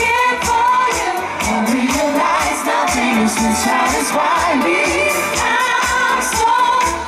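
Pop vocal group singing live through a PA, several voices together over backing music with a steady beat.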